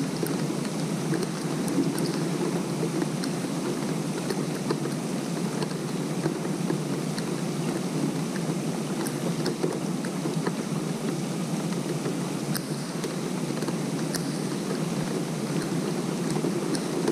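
Steady rain falling on a pond's surface: an even hiss with scattered sharp drip ticks.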